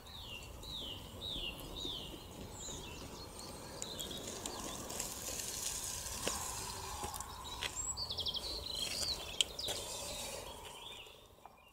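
Outdoor ambience with songbirds calling: a short descending chirp repeated four or five times near the start, and a quick trill about eight seconds in. A few faint clicks and taps are scattered through it.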